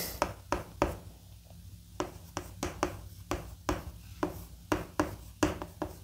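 Chalk writing on a blackboard: an irregular run of sharp taps and short scrapes, one for each stroke of the letters, about three or four a second.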